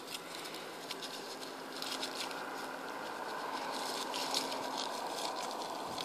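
Light rustling and scratching: a puppy scrabbling in grass and dry leaves at a bird held just above the ground, with scattered faint clicks over a steady background hiss.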